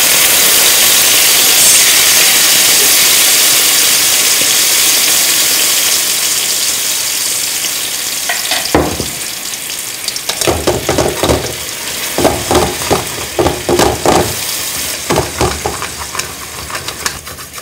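Fish sauce sizzling hard as it hits hot oil, fried garlic and sugar in a wok, the sizzle slowly easing off. From about nine seconds in it gives way to a run of irregular pops and clicks as the sauce bubbles on its way to a sticky caramel.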